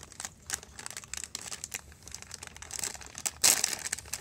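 Plastic snack bag crinkling and rustling as it is handled, in short irregular crackles, with one louder rustle about three and a half seconds in.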